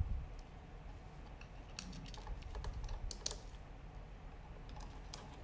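Scattered light clicks and taps of small screws and the plastic case of a Chromebook being handled, heaviest about two to three seconds in.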